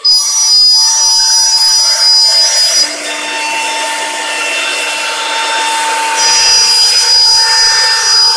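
Four-spindle CNC nesting router cutting a fibreboard panel: the spindle's steady high whine over the noise of the bit cutting. It starts abruptly, eases off about three seconds in and gets louder again about six seconds in.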